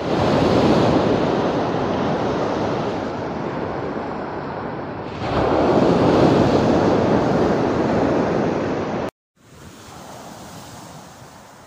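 Sea surf breaking and washing up the beach, swelling again about five seconds in. Near the end it cuts off and returns much quieter.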